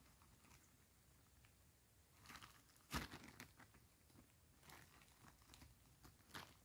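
Faint rustling and crinkling of a woven plastic sack and dry bean pods being handled, in a few separate bursts, with one sharper crackle about three seconds in.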